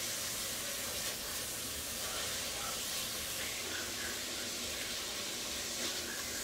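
Steady hiss and sizzle of pans cooking on a stovetop, with water coming to the boil.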